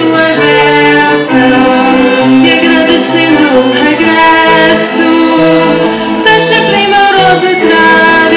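Live singing of a Portuguese Carnaval stage song into microphones, with instrumental accompaniment; female voices lead, with long held notes.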